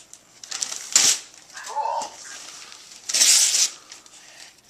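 Gift wrapping paper rustling and tearing in short bursts as a present is unwrapped, the loudest burst a little after three seconds in. A brief child's vocal sound comes just before the two-second mark.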